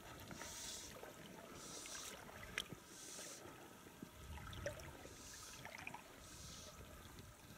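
Faint sound of river water moving past a boat, with a soft hiss that swells and fades about once a second and a few small clicks.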